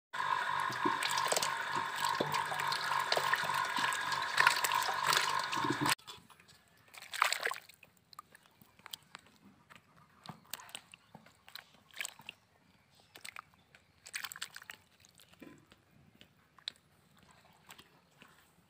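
A loud steady sound with several held tones and a pulsing high tone, which cuts off suddenly about six seconds in. After it come faint water splashes and scattered clicks as climbing perch are grabbed by hand in shallow, duckweed-covered water.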